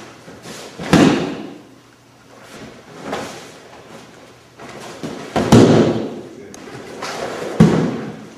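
Bodies being thrown and slammed onto padded training mats: three heavy thuds, about a second in, around five and a half seconds and near the end, with a smaller thump between.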